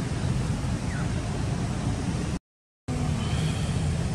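Steady low rumble of wind buffeting the microphone outdoors. It cuts to dead silence for about half a second a little past two seconds in, then resumes.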